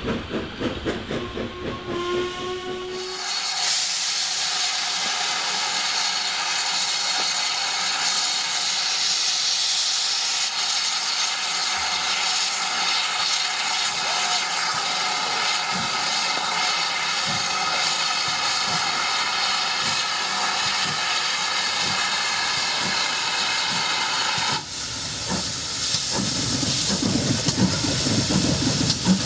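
A steam train passing with rhythmic beats, then a loud, steady hiss of steam from GWR Manor-class 4-6-0 No. 7822 'Foxcote Manor', which stands wrapped in steam. The hiss cuts off sharply about 25 seconds in, and the locomotive's exhaust beats start again as it moves off with steam around its cylinders.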